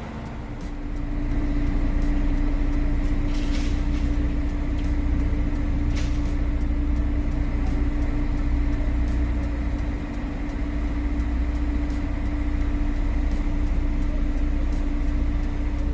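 Mobile crane's diesel engine running under load as the boom works: a low rumble with a steady hum, growing louder about a second in and then holding steady.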